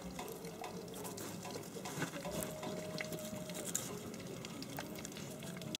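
Faint outdoor background with scattered small clicks and scrapes of plastic toy diggers being moved in loose soil, and a faint held tone about halfway through.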